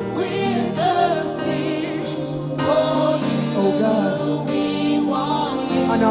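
Gospel praise choir singing a worship song, voices gliding between pitches over sustained chords.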